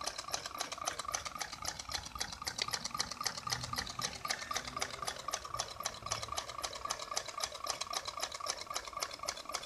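Homemade soda-can Stirling engine running over candle heat, its crank and flywheel linkage clicking in a fast, even rhythm of about seven clicks a second.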